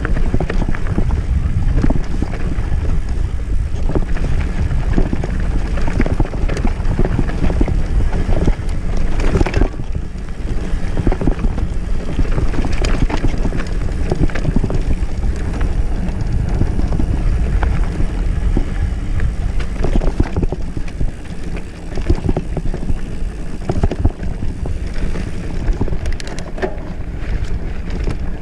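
Mountain bike riding a rough dirt singletrack: tyres running over dirt and stones, with many small knocks and rattles from the bike over the bumps. Heavy wind rumble on the microphone runs underneath.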